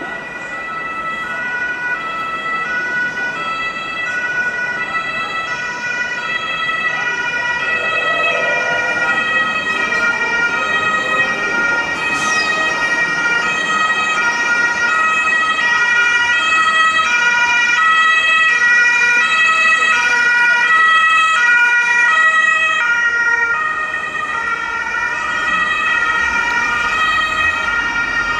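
German two-tone emergency-vehicle siren (Martinshorn) sounding on an emergency run, its high and low notes alternating about every half second and growing louder as it approaches. A steady high tone runs underneath.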